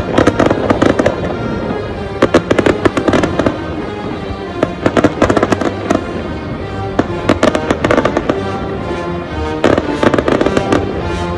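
Aerial fireworks going off in clusters of rapid, sharp pops and crackles every couple of seconds, with music playing underneath.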